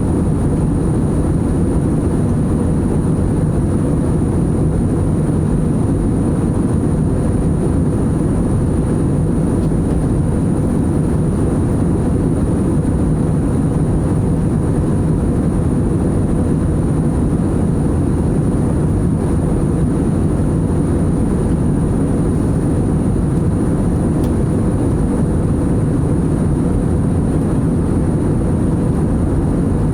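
Steady cabin noise of a jet airliner in flight: a constant low rush of engine and airflow noise that does not change, with a faint steady tone over it.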